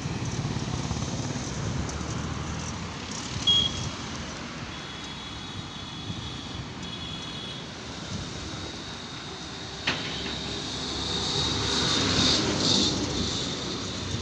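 Road traffic: the steady rumble of motorbikes and cars moving along the road, with a short high tone about three and a half seconds in, a sharp click near ten seconds, and the traffic getting louder for a couple of seconds near the end.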